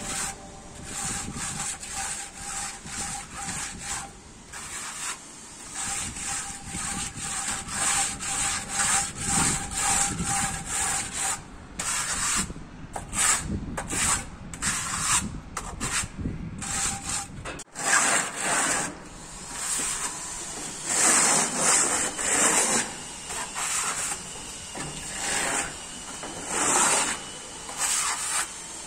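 Plastering trowel scraping and rubbing wet texture plaster across a wall in repeated short strokes, the strokes growing longer and louder in the second half.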